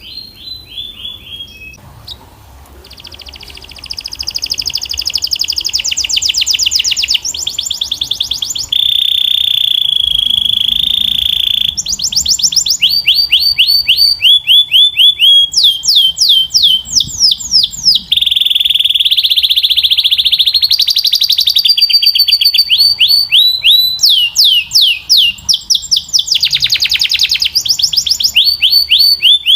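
Domestic canary singing a long, loud song of fast trills: runs of quick down-sweeping notes alternating with steady rolling trills held for a few seconds. The song is soft for the first couple of seconds, then comes in at full strength.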